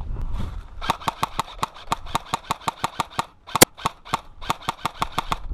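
Airsoft electric rifle firing two rapid full-auto bursts of about nine shots a second, with a single louder sharp crack between them.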